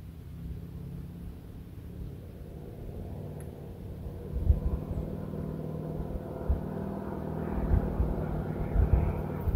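A motor engine running steadily, getting louder and fuller over the second half as it draws nearer, with a few short low thumps on the microphone.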